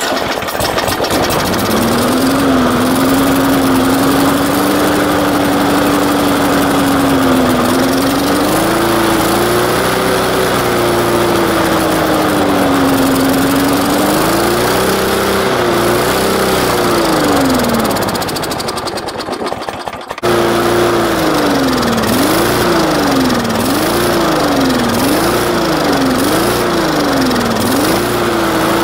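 Briggs & Stratton lawn mower engine running on straight rubbing alcohol, its speed wandering up and down. About two-thirds of the way in it slows and fades, then it is running again and surging rhythmically, rising and falling about once a second.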